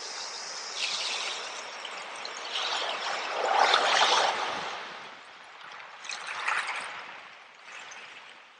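Running water trickling and splashing in uneven surges, with one louder splashing swell a little before the middle and smaller ones after it, fading toward the end.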